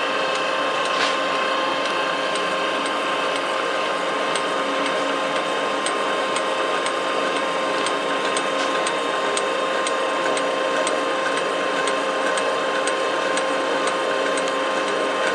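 Powder sprinkling machine running while dispensing cake flour: a steady mechanical hum with a few held tones and light, regular ticking about twice a second.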